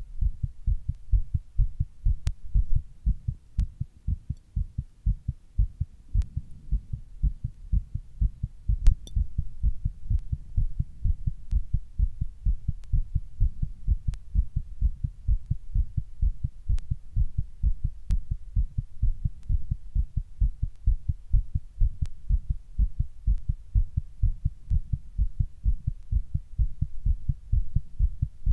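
Fast human heartbeat: a steady, rapid run of low thumps, with a few faint clicks over it, the loudest about nine seconds in.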